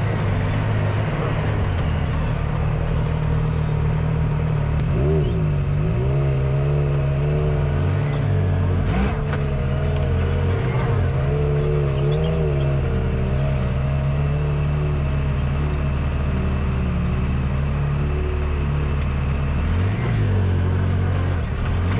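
Side-by-side UTV engine running at low, mostly steady revs while crawling over rocks, with short rises and falls in engine speed as the throttle is worked, about five seconds in, around twelve seconds and again near the end.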